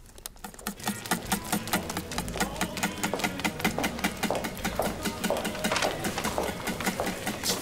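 Rapid, uneven clicking and tapping of several people's footsteps on a hard floor, over a low hum and faint background murmur.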